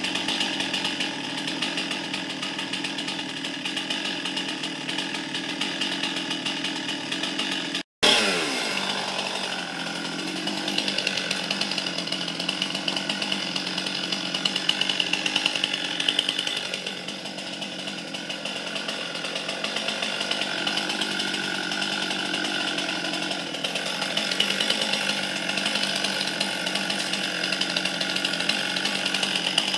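Two-stroke chainsaw engine running steadily while cutting through overgrown shrubs. The sound cuts out for an instant about eight seconds in, then carries on with the engine pitch briefly falling.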